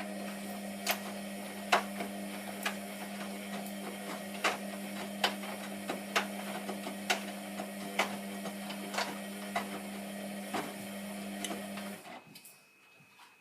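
Hotpoint Aquarius WMF720P washing machine's motor turning the drum early in a 40°C coloureds wash: a steady hum with a sharp click about once a second, stopping suddenly shortly before the end.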